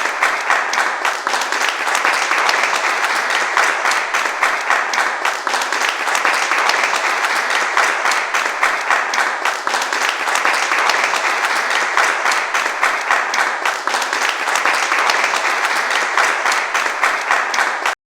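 Large audience applauding, a steady dense patter of many hands clapping, which cuts off abruptly near the end.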